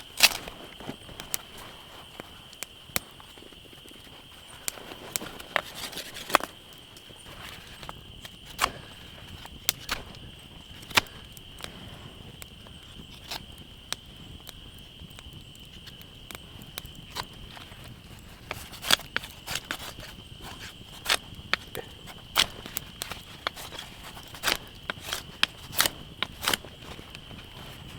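Campfire crackling, with irregular sharp pops and snaps, over a thin steady high tone.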